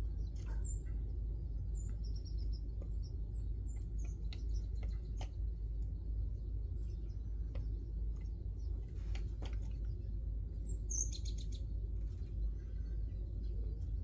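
Sparrows chirping in short, high notes scattered through, bunching into a quick run about eleven seconds in, over a steady low rumble, with a few sharp clicks.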